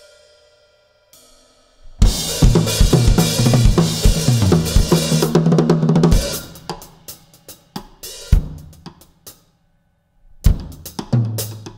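Acoustic drum kit played solo. After a faint fading ring, a dense run of snare, bass drum and cymbal strokes starts about two seconds in, thins into sparse single hits, stops briefly, and starts again near the end.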